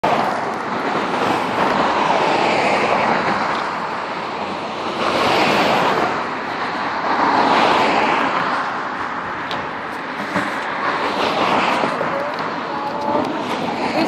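Road traffic: cars driving past close by one after another, the tyre and engine noise swelling and fading about four times.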